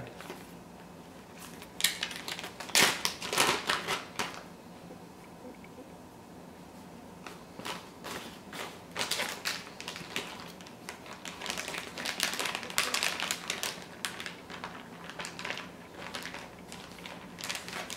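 Plastic Ziploc bag crinkling and rustling as it is handled and a wet paper towel is slid into it, in irregular spells of crackling with a lull of a few seconds after the first.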